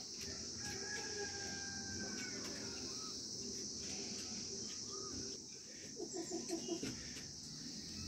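A rooster crowing faintly, with a short burst of clucking about six seconds in, over a steady high-pitched drone of insects.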